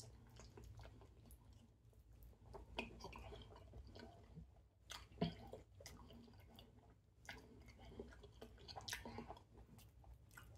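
Faint chewing and mouth sounds of a man eating a handful of food, soft wet clicks and smacks, with a sharper click about five seconds in, over a low steady room hum.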